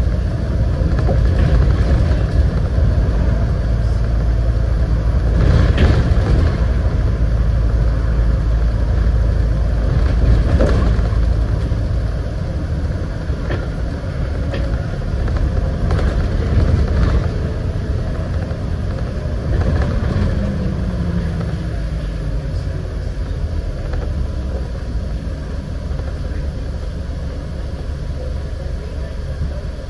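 Scania N94UD double-decker bus's diesel engine and road rumble, heard inside the bus. The engine pulls hard for the first twelve seconds or so, then eases off and the rumble quietens. A falling whine comes around twenty seconds in.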